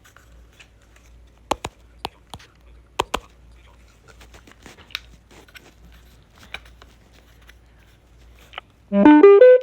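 Bluetooth speaker playing its status chime: a short, loud run of notes stepping quickly upward near the end. Before it come scattered light clicks and taps of the speaker and phone being handled.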